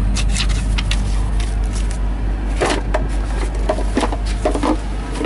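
A semi truck's diesel engine idling steadily, heard from inside the cab, with scattered clicks and knocks of things being handled on the dash.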